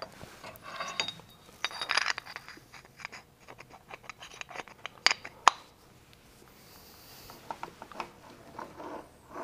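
Metal clinking and clattering as an aluminium injection mold block and small tools are handled and set down on a workbench, with two sharp metallic clicks about five seconds in.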